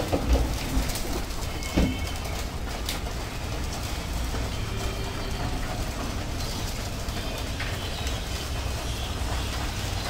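A flock of pigeons feeding at a tray of grain, pecking and shuffling against a steady low rumble, with a few sharp thumps in the first two seconds and some short high chirps.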